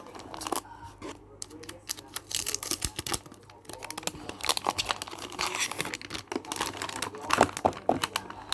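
Packaging being crinkled and torn open by hand during an unboxing, a run of close rustles, crackles and sharp clicks.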